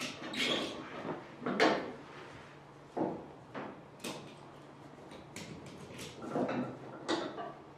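Irregular clicks, clunks and short rustling scrapes of tie-down straps and their buckles being worked loose from a wing jig, with one louder clatter about a second and a half in.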